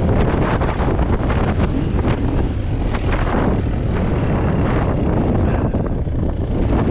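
Trail motorcycle engine running at low speed on a rough track, mixed with wind rumbling on the microphone.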